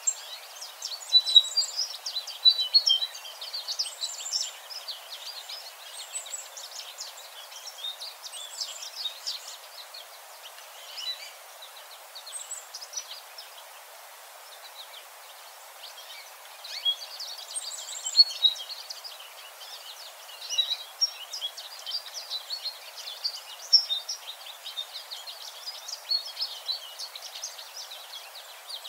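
American goldfinch singing: long runs of rapid, high twittering notes, with a sparser lull of a few seconds near the middle.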